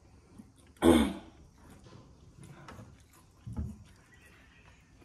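A person eating gives one short, loud cough about a second in, then a softer low throat sound a couple of seconds later, with faint mouth and chewing noises between.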